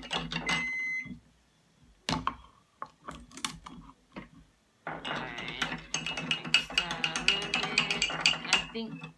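A spoon stirring brown sugar and vanilla in a dish: a few separate clinks and scrapes, then from about five seconds in a quick, continuous run of clinking against the dish that stops just before the end.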